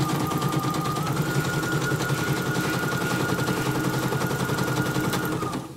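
CNY portable computerized embroidery machine stitching through thick foam for 3D puff embroidery: rapid, steady needle strokes over a motor whine that steps up in pitch about a second in, running without knocking on the thick-material setting. It stops abruptly near the end as the thread breaks.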